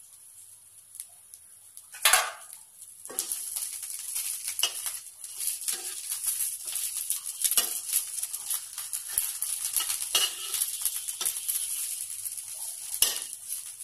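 Brinjal slices frying in a hot kadhai, sizzling and crackling, while a metal spatula scrapes and knocks against the pan as they are turned. There is a single loud clank about two seconds in, just before the sizzling starts.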